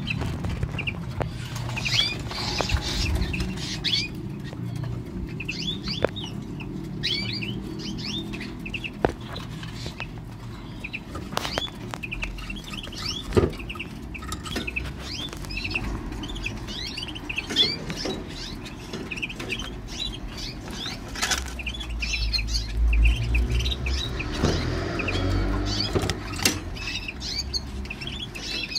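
Caged canary giving many short, high chirps all the way through, with now and then a sharp click and a flutter of wings as it hops between perch and cage floor.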